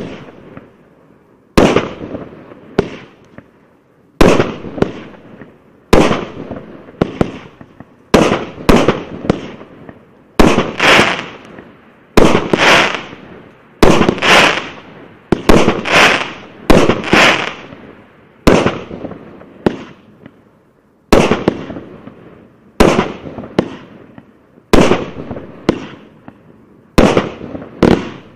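A 1.2-inch, 25-shot fireworks cake firing shot after shot: sharp bangs about one to two a second, often in quick pairs, each fading away before the next.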